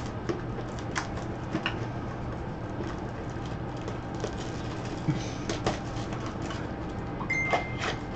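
Gloved hands handling a trading-card box and tearing off its plastic shrink-wrap: scattered crinkles and small taps over a steady low hum, with a short high beep near the end.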